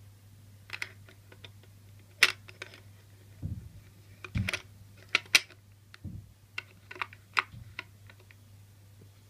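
Metal parts of a Mikiphone portable phonograph clicking and clinking as they are handled and fitted together, with a few dull thuds in between.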